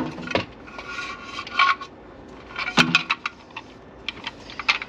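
Stiff 8/2 electrical cable being worked through the hole in a plastic outlet box: its sheath rubs and scrapes against the plastic, with scattered light clicks and knocks and a cluster of sharper knocks about three seconds in.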